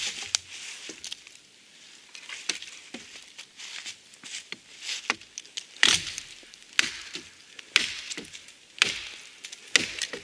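Hatchet chopping a dry, barkless dead branch: sharp, separate wooden strikes, sparse at first and coming about once a second and loudest from about six seconds in.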